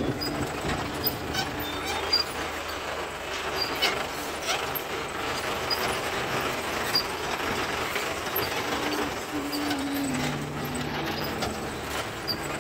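Mahindra CJ 550 jeep driving over a rough, rocky dirt track: the body and loose fittings rattle and clatter over the bumps, with the engine running underneath.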